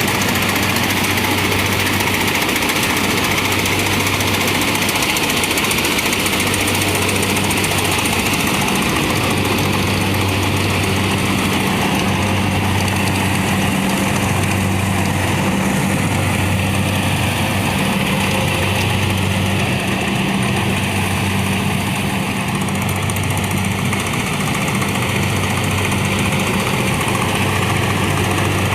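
Kubota combine harvester running steadily while it harvests rice, its engine and machinery making a loud, even drone. Under it is a low hum that swells and fades every second or two.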